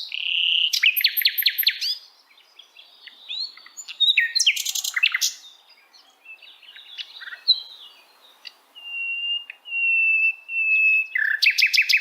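Several birds singing: rapid chirping trills and short calls, with a few clear, steady whistled notes.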